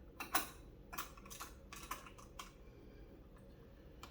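A series of light clicks and taps from hands fitting a new CPU into the motherboard socket, about seven in the first two and a half seconds, the first the loudest, then quiet handling.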